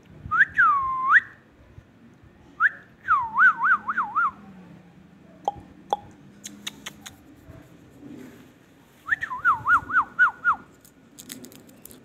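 Clear pitched whistling: one long swooping whistle, then two runs of five or six quick down-and-up whistled notes, with a few faint clicks between them.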